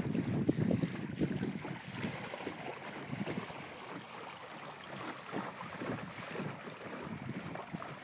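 Water rushing and splashing along the hull of a small one-man sailing dinghy under way, with wind buffeting the microphone. It is loudest in about the first second and swells again briefly around the middle.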